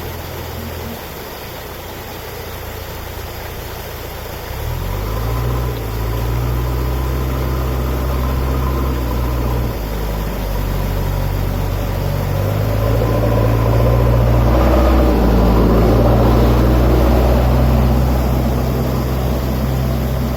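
Waterfall rushing steadily, with a loud low hum coming in about four seconds in and staying to the end, swelling in the middle.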